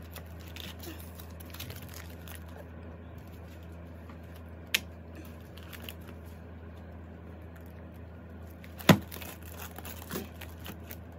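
Plastic binder sleeve pages rustling and crinkling as they are turned, with two sharp clicks, about five and nine seconds in, the second the louder, over a low steady hum.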